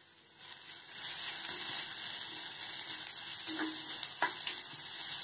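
Onions and ginger-garlic paste sizzling in hot oil in an iron kadai while a steel spoon stirs them. The sizzle swells in about half a second in and holds steady, with a few light spoon clicks against the pan.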